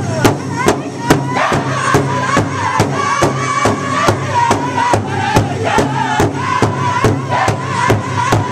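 Northern-style powwow drum group: several young men beat a large shared drum together in a steady, even rhythm of about two strokes a second while singing in unison, in high, strained voices.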